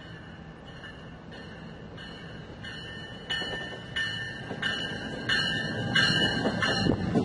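NJ Transit commuter train arriving with the cab car leading, its bell ringing steadily at about one and a half strikes a second and growing louder as it nears. The low rumble of the wheels on the rails builds toward the end.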